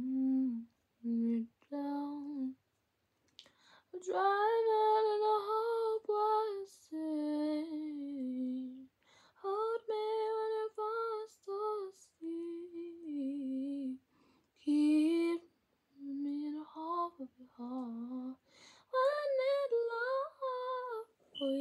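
A girl singing to herself in short phrases of held notes, with brief pauses between phrases.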